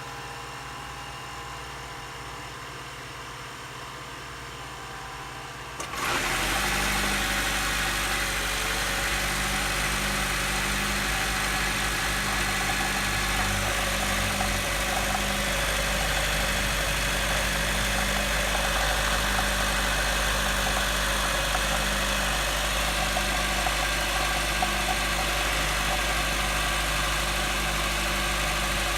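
Honda Odyssey Hybrid RC4's four-cylinder petrol engine starting up about six seconds in and then running steadily, with a pulsing low note. The owner reports a rolling, rattling ("korokoro") abnormal noise from it at engine start. Before the start there is only a fainter steady hum.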